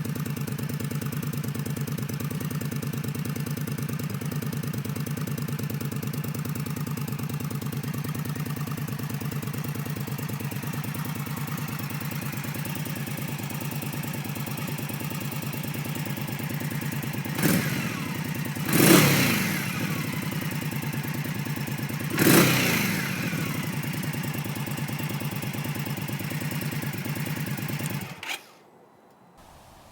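Indian Scout V-twin motorcycle engine idling steadily through its exhaust, blipped three short times about two-thirds of the way in, each rev rising and falling back to idle. Near the end the engine shuts off.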